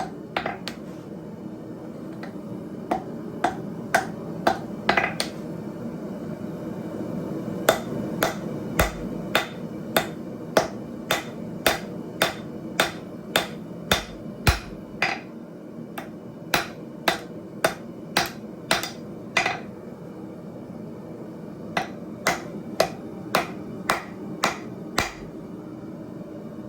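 Blacksmith's hammer striking hot steel on an anvil, about two blows a second, in four runs with short pauses between them. The blows have a brief ring over a steady low background noise.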